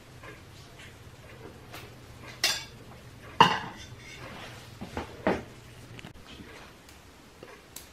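Metal spoon knocking and clinking against ceramic dishes a few times, the loudest knock about three and a half seconds in.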